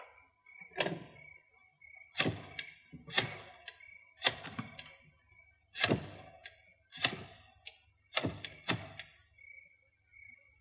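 Telephone being dialled: a string of sharp clacks, about one a second, as the number is put through.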